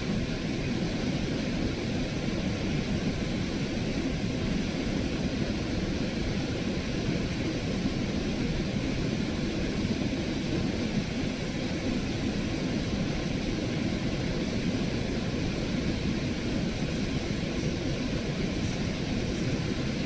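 Steady wind rumble on the microphone, a low, gusty noise that holds at the same level throughout.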